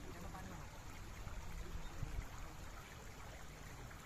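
Shallow water splashing and trickling as hands churn it at the surface, a soft, steady sound.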